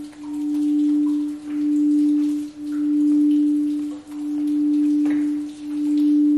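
Quartz crystal singing bowl sounding one steady low tone, kept going by a mallet drawn around its rim. The tone swells and dips about every second and a half.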